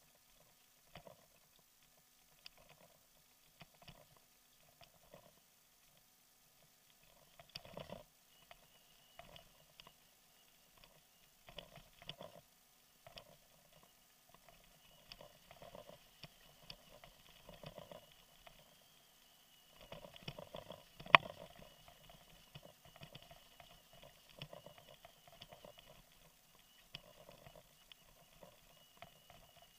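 Bicycle rolling over a bumpy dirt road: irregular muffled knocks and rattles from the bike and its handlebar mount, with one sharp knock about two-thirds of the way through.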